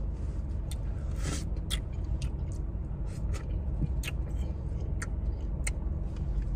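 Someone eating soft-serve ice cream from a waffle cone: a dozen or so short wet mouth clicks and lip smacks, scattered unevenly, over the car's steady low rumble.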